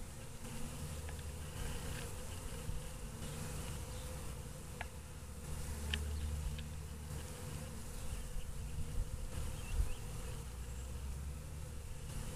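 Many honey bees flying in and out of a hive entrance, a steady buzz of their wings, the colony active again after winter.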